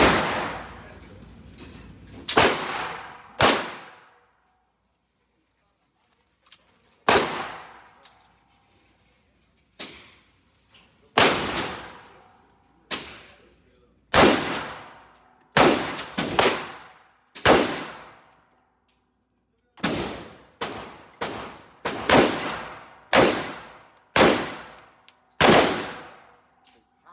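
Gunshots fired one at a time, about eighteen of them at an uneven pace, from half a second to a few seconds apart, each sharp crack ringing out and fading.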